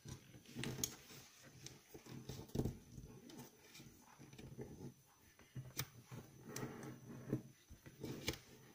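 A sheet of origami paper being folded and creased by hand on a wooden tabletop: irregular soft rustling and crinkling of the paper, with scattered sharp little clicks as fingers press down the folds.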